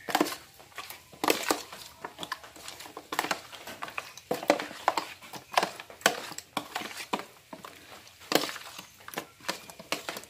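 A bare hand mixing raw chicken pieces into a yogurt and ginger-garlic marinade in a plastic tub: irregular wet squishes and knocks of the meat against the tub, a few of them louder.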